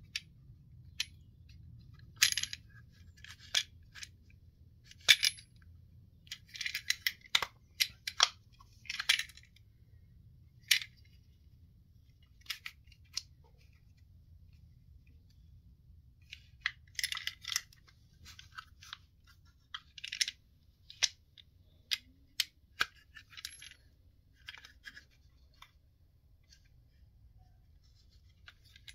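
Irregular sharp clicks and short rattling, clinking bursts of small hard parts being handled on a Spinlock XA rope clutch during a handle replacement. The clicks come in two busy stretches, with a quieter gap between them and a lull near the end.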